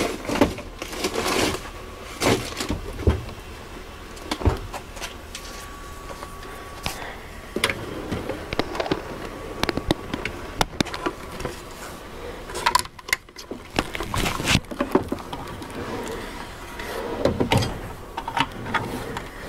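Rummaging through boxes and clutter on a workbench: irregular clattering, knocks and rustling as tools and parts are shifted about.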